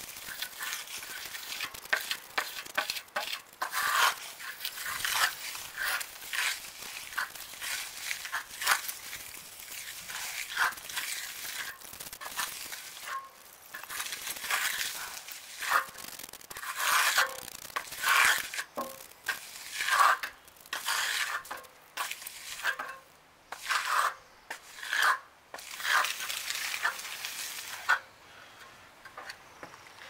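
Steel hand trowel drawn over fresh, wet concrete in repeated strokes, a rasping scrape with each pass as the slab surface is finished by hand. The strokes die away near the end.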